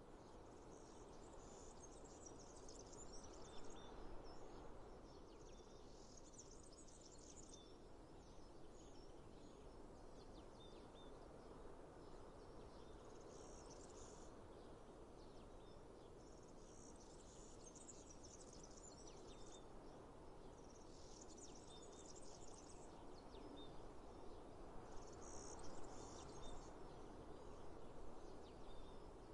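Faint village outdoor ambience: a steady low background hum, with high-pitched chirring that comes in bursts of a second or two every few seconds, and a few short chirps in between.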